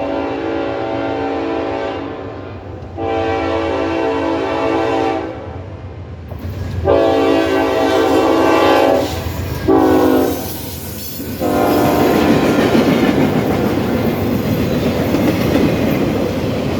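Norfolk Southern locomotive #4472's air horn blowing a series of long, deep blasts. The last, shorter blast drops in pitch as the locomotive passes, and then the train's wheels rumble by with a clickety-clack over the rails.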